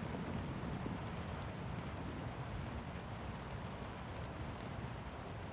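Steady rain, a continuous even hiss and patter, with scattered faint sharp ticks.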